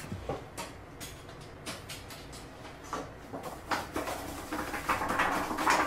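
A sheet of drawing paper being shaken and flapped to knock off loose coloured-pencil dust: scattered taps and light rustles, turning into a denser rustling over the last two seconds.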